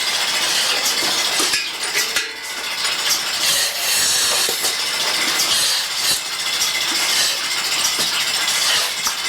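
Milking machine running: a steady hiss from the vacuum system, with scattered clicks and clinks.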